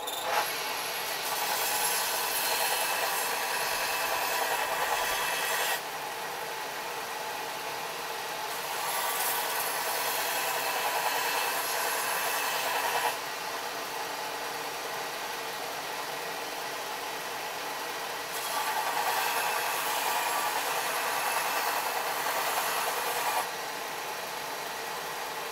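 Corded handheld power tool running and grinding on the steel tomahawk head, switched on at the start and bearing down harder in three spells of about five seconds, with lighter running in between.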